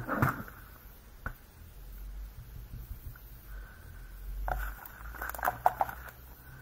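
Clicks and knocks of plastic craft supplies handled on a paper-covered desk: a clear acrylic stamping block set down and a clear stamp set picked up. A clatter right at the start, a single click about a second in, and a quick run of clicks near the end.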